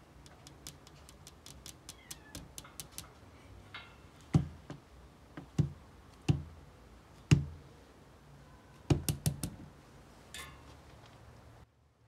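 Kittens meowing faintly amid a series of taps and knocks: a quick run of light clicks in the first three seconds, then several louder thumps from about four to nine and a half seconds in.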